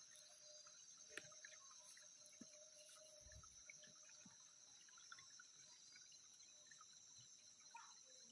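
Near silence: faint outdoor ambience of a steady high insect drone, with a few soft ticks and small water sounds.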